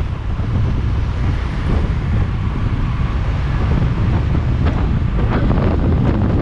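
Steady wind buffeting on the microphone of a GoPro carried on a moving motorcycle, with the motorcycle's engine and road noise underneath.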